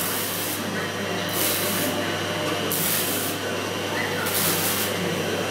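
Robot-held MIG welding arc crackling and hissing steadily as the torch runs a seam on sheet steel. A brighter hiss surges about every second and a half.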